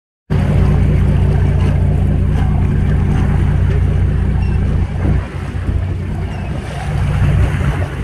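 Charter fishing boat's engine running steadily at sea, with wind and water noise; the engine hum eases a little about five seconds in.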